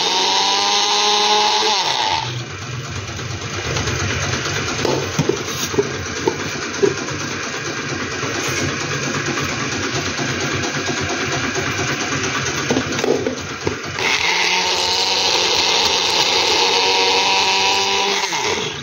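Electric blender grinding slices of bread into crumbs, its motor running in two bursts. The first run winds down about two seconds in. A quieter steady noise with a few clicks follows, and the motor runs again from about fourteen seconds in before winding down near the end.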